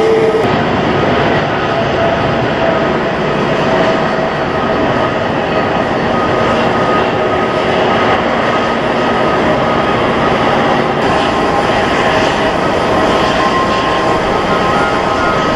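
Jet airliner engines: a loud, steady rumble with several high whining tones held over it.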